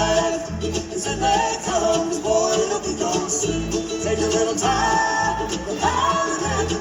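Live roots-rock band playing an instrumental passage with a steady bass and drum pulse, under a lead line that slides up into held notes.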